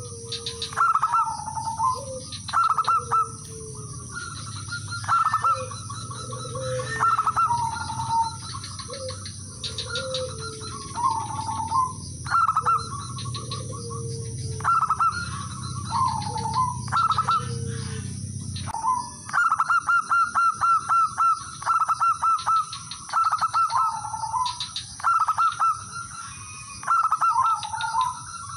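Male zebra dove cooing: repeated staccato, rattling coo phrases, each ending in a drawn-out bending note, every second or two, and coming more densely in the last third. A second, lower cooing voice joins in under them for the first two-thirds. A steady high-pitched ringing runs underneath, and a low hum cuts out about two-thirds of the way through.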